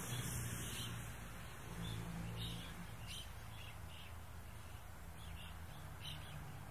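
Quiet outdoor ambience: scattered short bird chirps over a faint, steady low hum.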